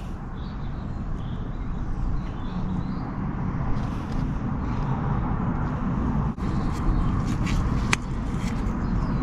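Steady low rumble of outdoor background noise, with a few sharp clicks in the second half, the sharpest near the end.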